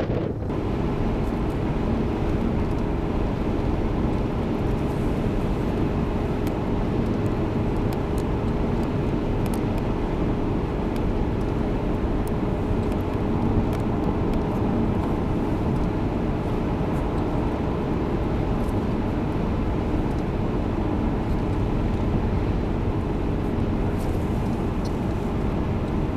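Steady road and engine noise of a moving car, with a constant drone holding one pitch.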